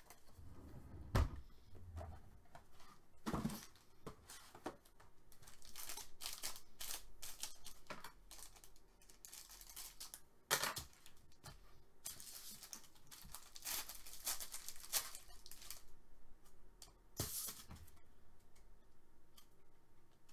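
Foil trading-card pack wrappers being cut open with scissors and handled: irregular crinkling, tearing and rustling of foil packaging with scissor snips, and a thump about a second in.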